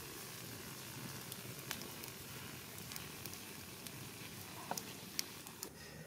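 Stuffed freshwater snails grilling over a fire, sizzling steadily, with a few sharp pops and crackles, the loudest about five seconds in.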